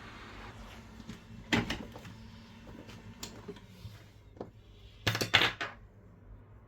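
Sharp clicks and taps of small tools and phone parts being handled on a work surface: a cluster of clicks about one and a half seconds in, and a louder quick run of several clicks about five seconds in.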